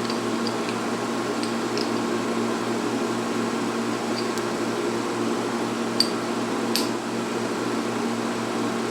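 Steady fan hum in a small shop with a few light clicks and taps scattered through it, the sharpest about six seconds in.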